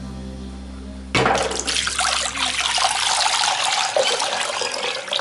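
Water poured in a stream into an empty metal cooking pot, splashing in suddenly about a second in.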